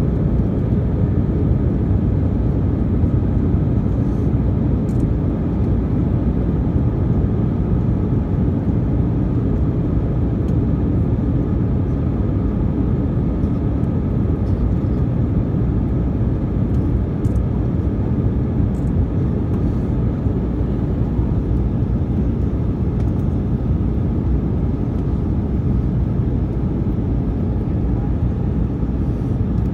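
Steady low rumble inside the cabin of an Airbus A319-132 on landing approach. It is the sound of its IAE V2500 turbofan engines and the airflow, heard from a window seat beside the wing.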